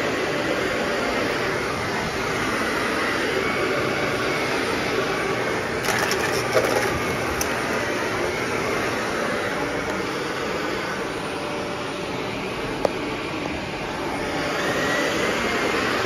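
Shark Navigator Anti-Allergen upright vacuum cleaner running steadily with a faint high whine while it is used on carpet. A few sharp clicks and knocks come about six to seven seconds in, and one more click near the end.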